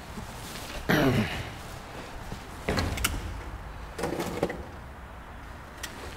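Steel grill creaking and scraping metal-on-metal three times, about a second and a half apart, with a few sharp clicks in between.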